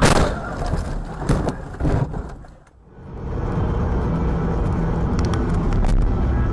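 Car crash: a loud impact as another car hits the front of the car, followed by a couple more crunches and clattering debris over about two seconds. After a cut, a steady low road and engine rumble from a car cruising at highway speed.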